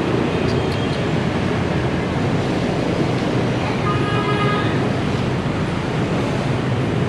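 Steady road traffic noise, an even wash of passing vehicles, with a brief faint tone about four seconds in.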